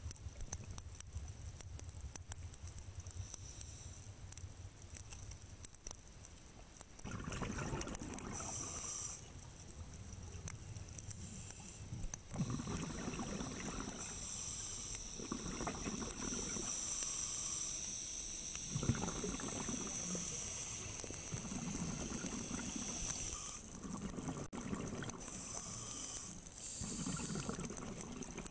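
Scuba diver breathing underwater through a regulator: exhaled bubbles gurgle out in bursts every few seconds, with a hiss, starting about seven seconds in after a low hum.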